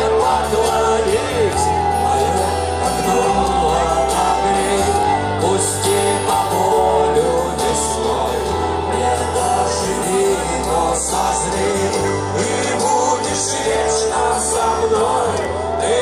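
Live rock band with a male singer, played loud through an outdoor concert PA and heard from within the audience, with shouts from the crowd.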